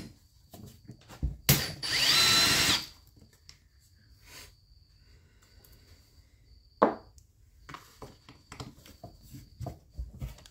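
Cordless drill-driver spinning out a fastener from a chainsaw's housing in one run of about a second and a half, its motor whine rising slightly. A sharp click about seven seconds in and small clicks and rattles of tools and parts come before and after.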